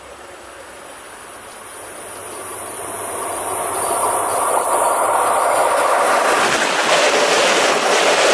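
A train approaching along the track, its rushing noise growing steadily louder until it passes close by. From about six seconds in, a rapid clatter of its wheels over the rails joins in.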